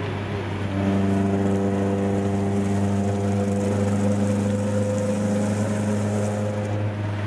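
Nissan Gazelle S12's SR20DE four-cylinder engine and big cannon-style exhaust heard from inside the cabin, pulling steadily at around 3300 rpm in third gear. It makes a steady low drone that grows louder about a second in, with a higher hum on top.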